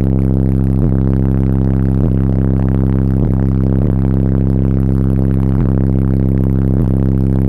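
Four 15-inch Soundstream subwoofers in a 17-cubic-foot box tuned to 33 Hz, playing a loud, steady bass drone heard from inside the vehicle's cabin, with a faint click every second or so.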